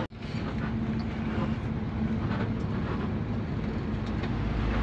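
Intercity bus running along the road, heard from inside the cabin: a steady engine hum under road noise.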